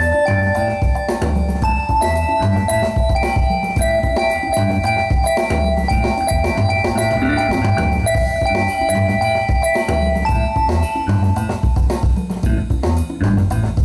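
Music with a steady drum-kit and bass beat under held melodic notes.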